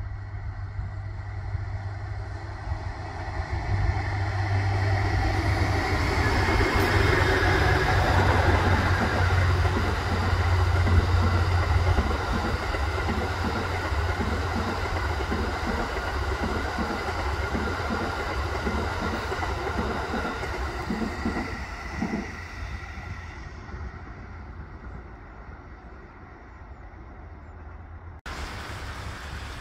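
The Cassiopeia Kikō train, a locomotive hauling silver E26-series passenger cars, passes close by. Its rumble builds to a peak as the train goes past, then settles into a steady rhythmic clatter of wheels over rail joints that slowly fades as the coaches run by. The sound cuts off abruptly near the end.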